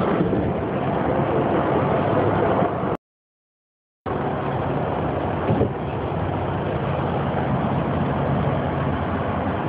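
Steady road and engine noise from inside a moving vehicle at highway speed. About three seconds in it drops to dead silence for about a second, an edit in the recording, then resumes, with a brief louder bump a little past halfway.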